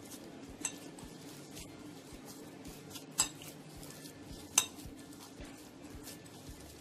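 Hand kneading mashed boiled potato in a white fluted bowl: a few sharp clicks of hand or nails against the bowl, two louder ones about three and four and a half seconds in, over a faint steady hum.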